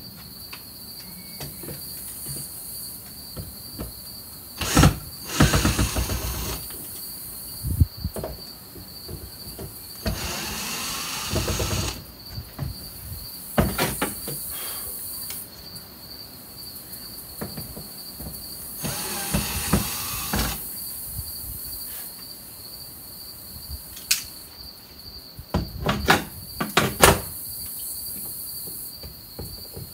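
Cordless drill set to reverse, backing screws out of a window frame in several short runs of a second or two each, with clicks and knocks of the bit and frame between runs. Insects chirp steadily in the background.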